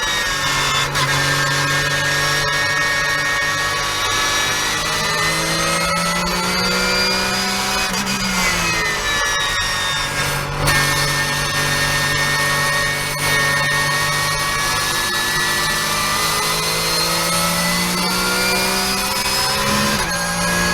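Porsche 991.1 Cup car's flat-six engine pulling hard on track, its pitch climbing through the revs, with sharp drops in pitch at the gear changes and a falling stretch about eight seconds in as it slows, then pulling again.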